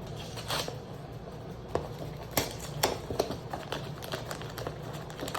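A toy blind box being opened and its packaging handled by hand: irregular light clicks, taps and rustles, a little denser from about two seconds in.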